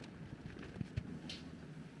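Faint scattered knocks and shuffling of someone moving about and handling things out of view inside the trailer, over a low background rumble.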